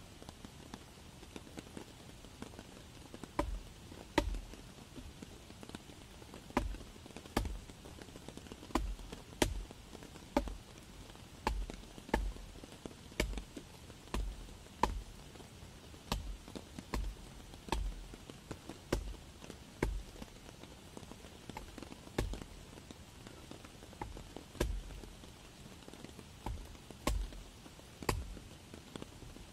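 A hatchet chopping into a damp fallen log: a string of dull knocks at about one stroke a second, starting a few seconds in.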